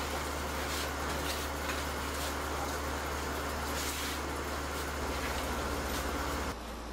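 Steady low hum with an even rushing noise, the sound of machinery running, with a few light clicks. It cuts off suddenly near the end.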